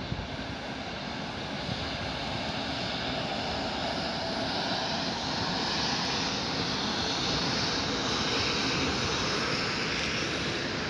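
Container freight train behind an electric locomotive passing through, its wagon wheels rumbling on the rails. The rumble swells over the first several seconds and stays loud through the rest.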